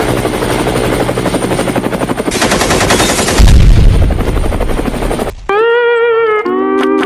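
Rapid automatic-gunfire sound effect, with a loud low boom about three and a half seconds in, cutting off after about five seconds; then a short electronic tone that bends in pitch and then holds steady.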